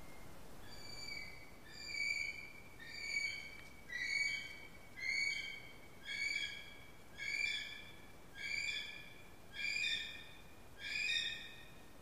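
Kiwi calling: a series of about eleven high whistled notes, roughly one a second, the first faint and the rest louder and evenly spaced.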